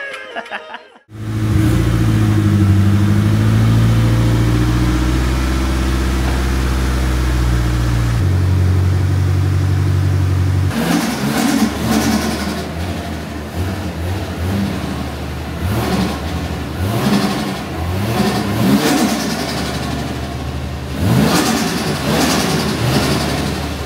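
Toyota 1JZ straight-six engine running, starting a second in at a steady idle that settles lower about eight seconds in. Through the second half it is revved in a series of short throttle blips that rise and fall back.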